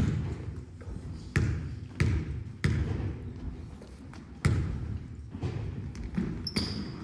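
Basketball bouncing on a hardwood gym floor: about five separate bounces, three of them in quick succession a little before the middle, each dying away in the hall's echo.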